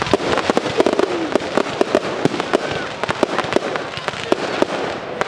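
Aerial fireworks going off: a dense, continuous crackling of many small pops, with louder sharp bangs scattered through it.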